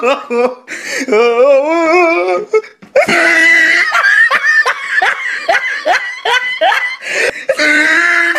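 A person laughing hard: a drawn-out, wavering laugh, then from about three seconds in a fast run of repeated laughs, several a second.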